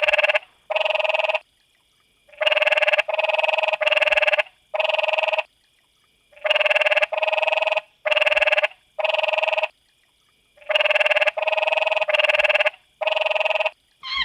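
An animal's buzzy, rasping call, each note about half a second long, repeated in bursts of three or four notes with pauses of about a second between bursts.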